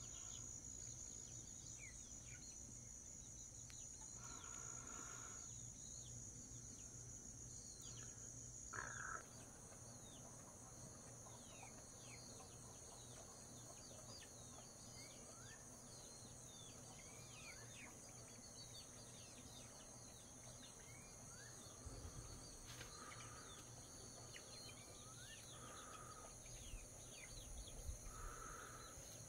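Faint dusk chorus of insects trilling steadily at a high pitch, with many short chirps throughout and a few brief louder calls, from birds or other animals, scattered through it.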